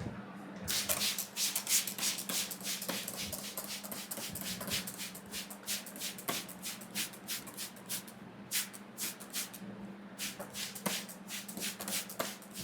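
Barber's hands rubbing and scratching vigorously through the hair and over the scalp in an Indian head massage: a quick, uneven run of short rustling strokes, with brief pauses near the end.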